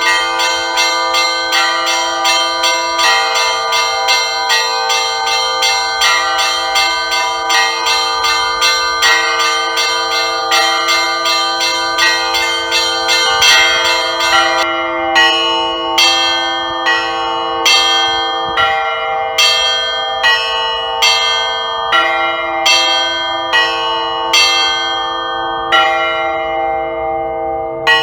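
Russian Orthodox church bells rung together in a peal: rapid strikes of the small bells over the ringing deeper bells, then about halfway through the small bells stop and the larger bells strike on alone about once a second, spacing out near the end.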